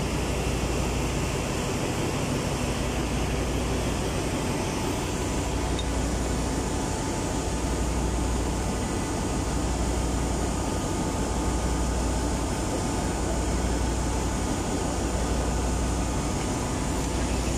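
Steady engine-room machinery noise: a continuous rush with a low hum underneath that swells and fades roughly every two seconds.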